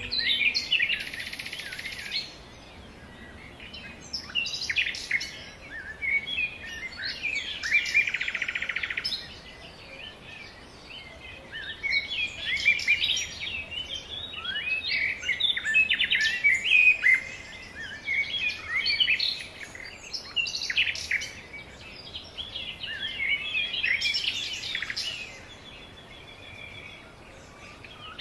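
Birds chirping and singing: many quick, high calls and trills overlap in clusters of a few seconds, broken by short quieter gaps.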